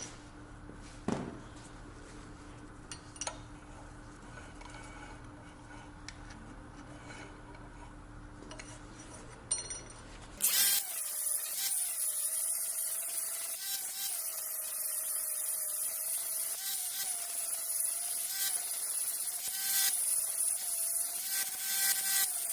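Low steady hum with a few light clicks; about ten seconds in, a power tool starts grinding steel, with a steady, slightly wavering whine over a hiss.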